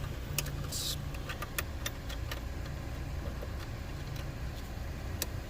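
Scattered sharp metallic clicks and taps of hand tools and parts as a 10mm bracket is refitted on an A/C line, most of them in the first couple of seconds, over a steady low rumble.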